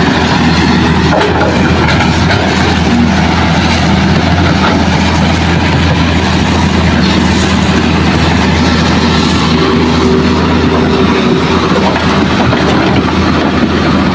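Hitachi excavator's diesel engine running steadily under load as it digs and swings, with rocks and soil rattling into the dump truck's steel bed.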